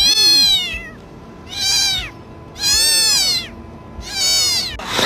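A cat meowing four times in a row. Each meow is loud and high-pitched and rises then falls in pitch, the first and third a little longer than the others.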